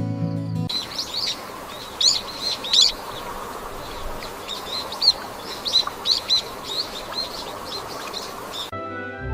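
Songbirds chirping and singing: many short, quick calls repeating over a steady background hiss. Instrumental music cuts off just after the start and comes back in near the end.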